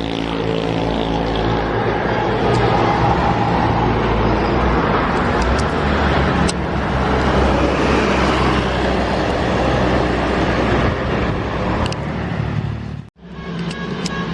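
Buses and other traffic passing close on the road: engine hum and tyre noise, steady and loud, with a sharp momentary dropout near the end.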